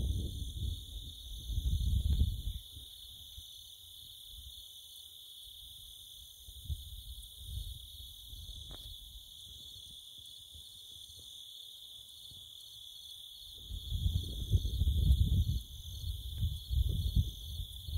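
Steady high-pitched chirring of insects, with wind gusts buffeting the microphone as a low rumble in the first couple of seconds and again over the last four or so seconds, the loudest parts.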